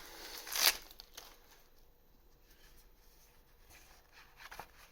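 Foil booster pack wrapper crinkling and tearing during about the first second, then only faint handling sounds, with a few light clicks near the end.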